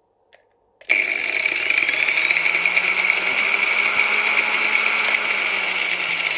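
Angle grinder run through a homemade speed regulator, switched on about a second in: its motor starts suddenly, spins up over a few seconds and then runs steadily at a reduced speed setting meant for sanding and polishing.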